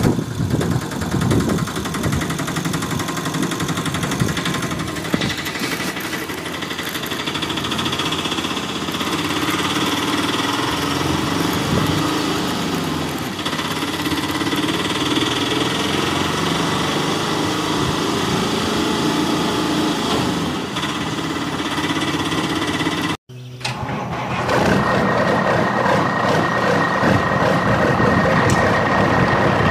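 Engine sound effect of a small vehicle running steadily, laid over a hand-pushed toy auto-rickshaw. About 23 seconds in it cuts out for an instant and gives way to a louder truck engine sound with a steady high whine.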